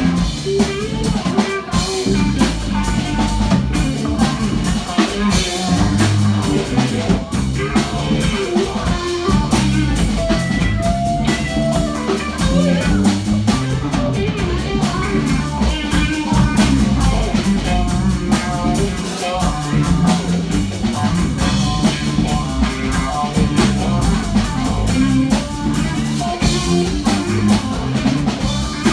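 Live rock band playing: guitar over a drum kit, continuous and loud.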